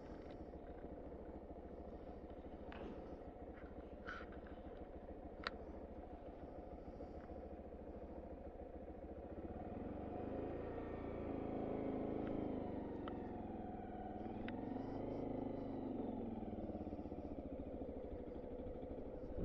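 Honda Monkey's 125cc single-cylinder engine running steadily and fairly quietly, with a few sharp clicks. About halfway in it grows louder as the bike gets under way, its pitch rising and falling.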